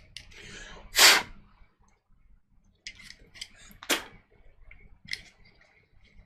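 Glock 23 pistol parts being handled during cleaning: a short hiss about a second in, then a few sharp clicks and taps of plastic and metal parts.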